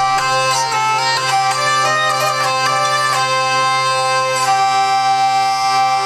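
Hurdy-gurdy being played, its crank-turned wheel sounding a melody on the keyed chanter strings over a steady drone. About four and a half seconds in, the melody stops on one held note while the drone carries on.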